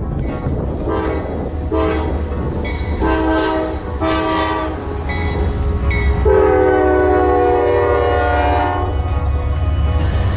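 Diesel locomotive horn of Norfolk Southern AC44C6M No. 4056 sounding several shorter blasts, then one long, louder blast about six seconds in, over the steady low rumble of the approaching train.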